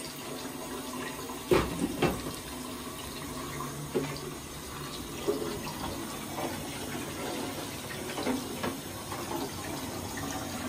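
Steady rush of running water, with a couple of sharp knocks about a second and a half in.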